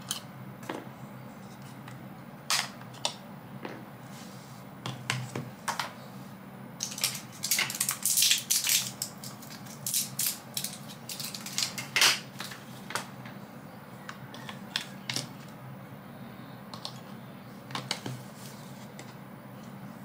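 Batteries being taken out of and pushed into the plastic battery compartment of an aircon remote control: scattered clicks, knocks and rattles of the cells against the spring contacts and the plastic case. The clicks come thickest in the middle, over a low steady hum.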